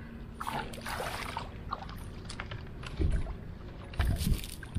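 Shallow water splashing and sloshing as a big landed carp is handled and flops at the muddy river's edge, with heavier splashes about three seconds in and again about a second later.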